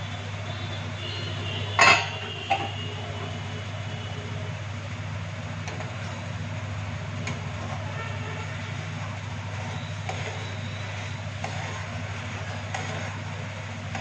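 A steady low hum in the kitchen, with a sharp metallic clank of a utensil against a cooking pot about two seconds in and a lighter knock just after.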